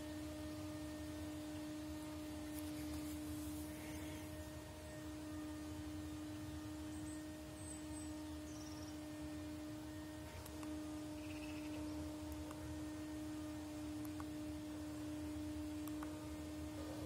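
A steady hum at one unchanging pitch, with a fainter higher overtone, over low background noise.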